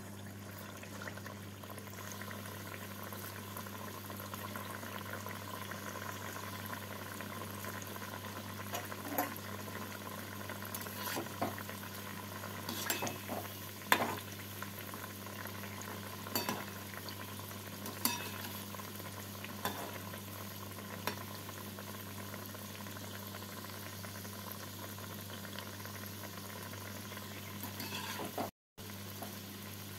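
Bread sweets sizzling steadily as they deep-fry in hot oil and ghee in an aluminium kadai. A slotted spatula makes occasional short clicks against the pan as it turns them.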